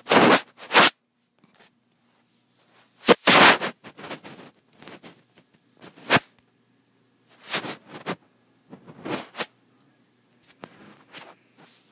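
Handling noise from the handheld recording device as it is picked up and turned: hands rubbing and knocking against it right at the microphone, in a string of short scraping bursts, the loudest about three seconds in.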